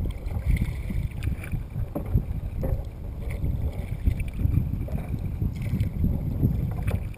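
Wind buffeting the microphone of a camera mounted on a kayak's bow, an uneven low rumble that swells and dips, with a few brief clicks.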